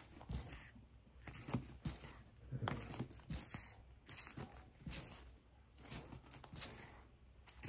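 Comic books being handled and flipped through one after another: faint, irregular rustling and crinkling with light taps, several a second.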